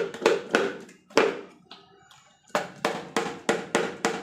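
A wet, raw cow's snout being scrubbed by hand against a plastic stool: a run of sharp rubbing strokes, a short pause about halfway, then quicker strokes at about four a second.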